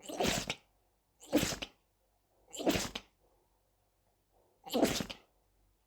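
Four short animal sneezes, each about half a second long, spaced one to two seconds apart.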